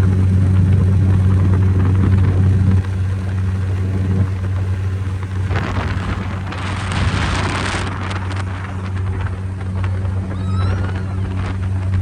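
Motorboat engine running with a steady low drone, dropping slightly in level about three seconds in. Around the middle comes a rushing hiss lasting about two seconds.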